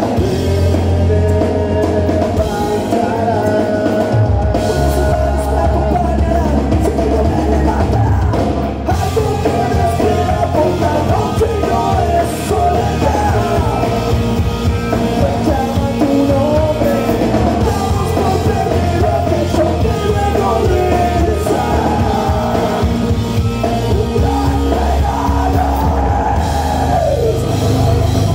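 Three-piece heavy rock band playing live: electric guitar, bass and drum kit with vocals.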